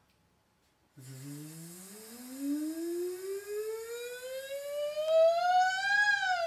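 A woman's voice doing a vocal siren exercise: starting about a second in, one long, smooth glide rising slowly from low to high, then wavering up and down near the top of the slide and getting louder.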